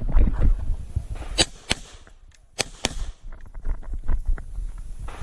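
Four 9 mm pistol shots from a CZ 75 Tactical Sport, fired in two quick pairs with each pair's shots about a third of a second apart: double taps on targets during an IPSC stage. Low rumbling movement noise comes before the first shot.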